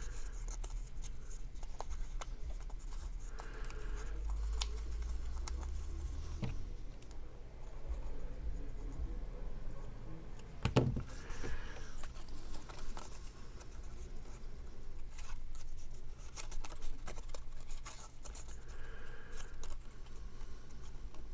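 Cardstock being handled on a tabletop: rubbing, scratching and small clicks of paper pieces being folded and pressed into place, with a soft knock about eleven seconds in.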